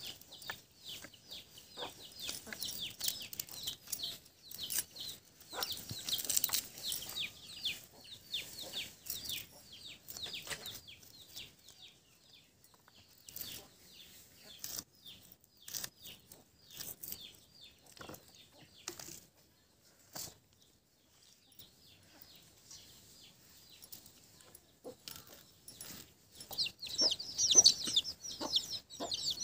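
Birds chirping in quick runs of short, high, falling calls, loudest near the end, over soft clicks and scrapes of a blade working seeds out of bhanda fruit.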